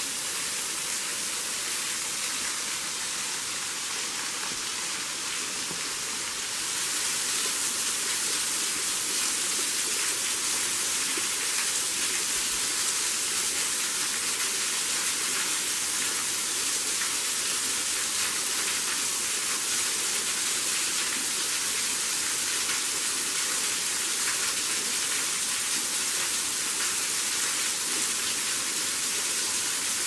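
Thin waterfall falling from a rock overhang and splashing onto boulders below, a steady hiss of falling water that grows a little louder about six and a half seconds in.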